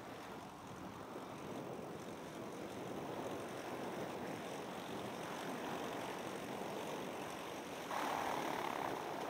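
Propeller engine of a small single-engine taildragger running as the plane taxis. It is a steady drone that swells gradually and jumps louder about eight seconds in.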